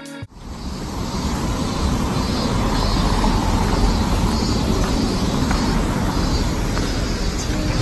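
Street traffic: cars driving past on the road, a steady low rumble of engines and tyres.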